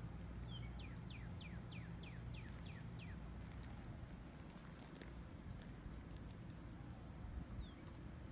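A bird singing faintly: a run of quick downward-slurred notes, about three a second, which stops about three seconds in and starts again near the end. A steady high-pitched tone runs beneath it.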